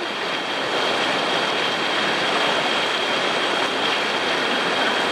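Whitewater rapids rushing steadily and loudly, heard close up at water level from a kayak in the middle of the rapid.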